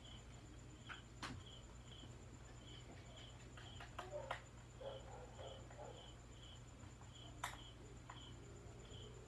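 Faint insect chirping, repeating about twice a second over a thin steady high tone, with a few sharp clicks from a hand tool on a small plywood piece.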